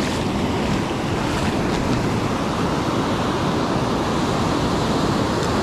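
Ocean surf breaking and washing up over a shallow sandy beach, a steady rush of water with no let-up, with wind buffeting the microphone.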